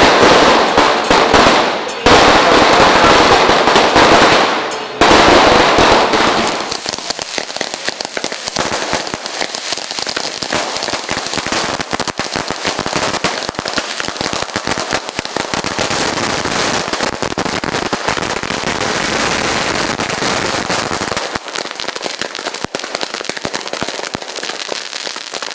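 A string of firecrackers going off in a dense, rapid crackle, loudest through the first six seconds and then settling into a steadier crackle.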